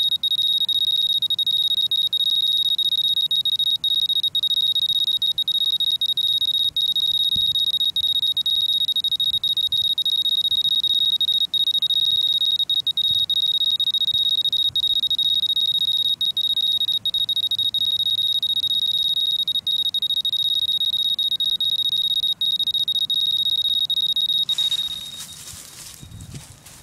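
Handheld radiation meter's alarm, one steady high-pitched tone, sounding while it reads about 1.38 μSv/h above the sediment. The tone cuts off about 25 seconds in, followed by brief handling noise.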